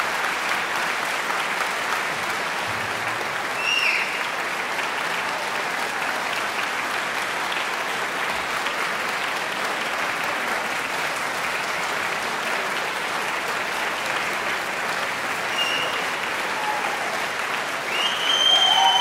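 Concert-hall audience applauding steadily at the end of a performance, growing louder near the end.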